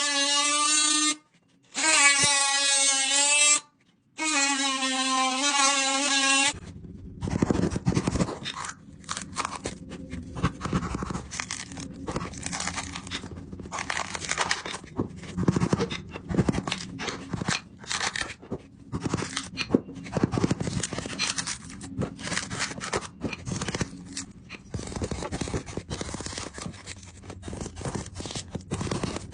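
Three long held horn-like tones, then from about six seconds in a long run of irregular scraping and rubbing strokes, like hand work on a floor surface.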